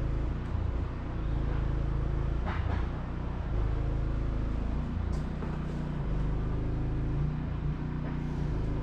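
Solar air conditioner unit running after switching on: its fan blowing with a steady low motor hum, the unit vibrating.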